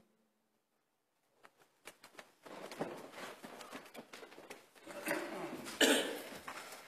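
A choir sitting down in wooden pews: shuffling, rustling of robes and music folders, and light knocks. It follows a second or two of near silence, with a short louder rustle about six seconds in.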